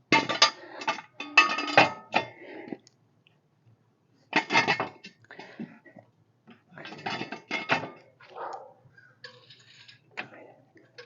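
Metal clanking and clinking in several short bursts, each a second or two long with pauses between.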